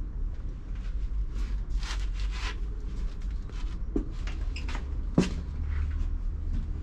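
Scattered knocks and clicks of fittings being handled, with one sharper knock about five seconds in, over a steady low rumble.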